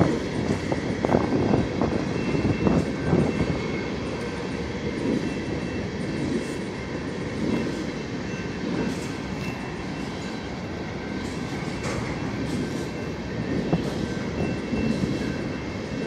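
Freight train of hopper cars rolling past a grade crossing: a steady rumble of wheels on rail with a thin, steady high-pitched ring above it. Gusty wind buffets the phone's microphone, swelling and easing.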